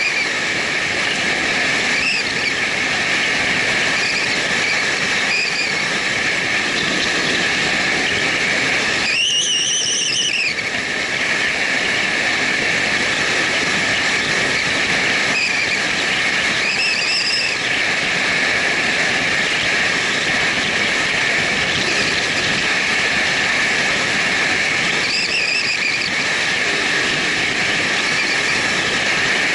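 Steady wind and road noise from a motorcycle riding at speed, with its engine running under it. A high whistling tone rises and falls a few times, loudest about nine to ten seconds in.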